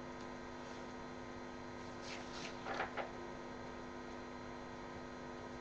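Steady electrical hum, with a brief rustle of a paper sheet being handled and lifted about halfway through.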